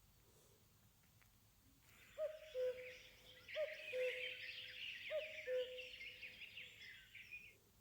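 Huawei Y6s (2019) birdsong ringtone: high twittering chirps with a lower two-note call repeated three times, about a second and a half apart. It starts about two seconds in and stops shortly before the end.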